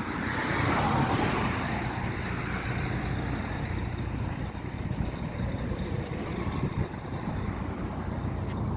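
Road traffic: steady vehicle engine hum and road noise, louder for the first second or two.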